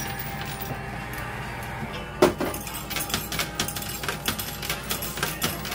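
Quarters clinking on a coin pusher's playfield: one sharp clink about two seconds in, then a run of lighter clicks and clinks, over background music.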